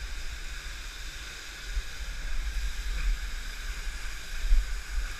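Steady rushing hiss of a waterfall, with an uneven low rumble of buffeting on the microphone that swells and dips and peaks briefly near the end.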